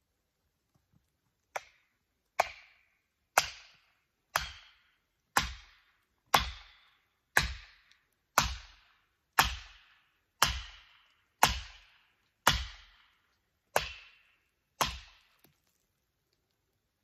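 Fourteen hard strikes from a hand tool on wood, struck at a steady pace of about one a second, each with a short ringing tail; the first blow is lighter than the rest.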